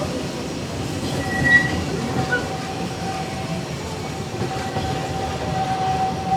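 Narrow-gauge steam train rolling along its track, heard from aboard a coach: a steady rumble of wheels on rail, with a thin high squeal that comes and goes and grows stronger near the end.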